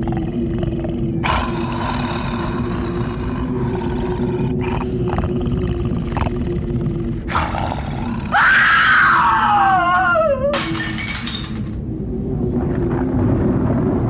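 Layered horror sound effects over a steady low rumbling drone: several sudden noisy crashes, a loud falling shriek about eight seconds in, then a crash about a second long right after it.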